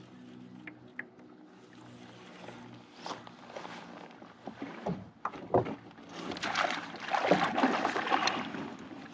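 Water splashing with scattered knocks around a kayak as a hooked pike is fought at the boat. The splashing is heaviest in a burst from about six seconds to near the end.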